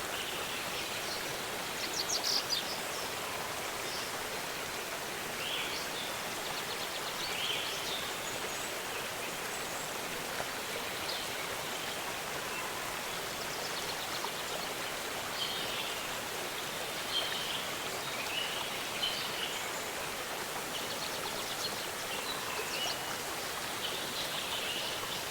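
Steady rush of falling water from a waterfall, with small birds chirping and trilling now and then over it.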